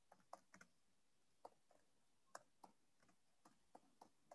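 Faint, irregular clicks of a computer keyboard being typed on, about a dozen keystrokes spaced unevenly.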